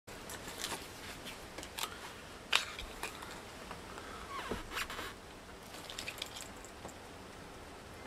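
Schrade F57 neck knife being drawn from its sheath on a neck cord and handled: scattered light clicks and clothing rustle, with one sharp click about two and a half seconds in as the knife comes free.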